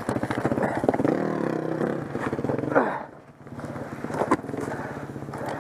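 Honda CRF four-stroke single-cylinder dirt bike engine running and revving. The sound dips away for a moment about three seconds in, then settles back to a steady run.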